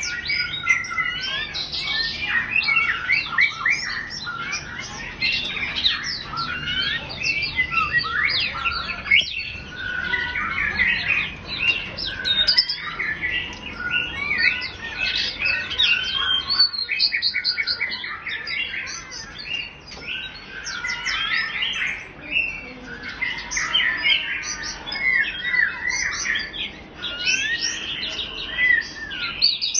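Female white-rumped shama singing: a long, varied run of quick whistled notes and chirps, many sliding up or down in pitch, with a few short pauses.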